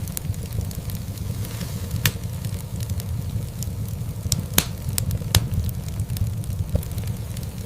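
Wood fire burning in a fireplace: a steady low rumble of the flames with scattered sharp crackles and pops, the loudest pop about four and a half seconds in.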